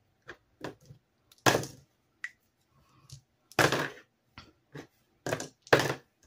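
Six-sided dice tossed onto a tabletop, clattering in a string of short, sharp knocks, with two louder hits, one about a second and a half in and one a little past the middle.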